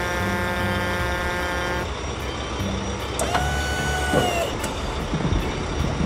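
Cartoon truck sound effects: an engine rumble pulsing on and off, with a long held tone that stops about two seconds in. A shorter tone sweeps up, holds and bends back down in the middle.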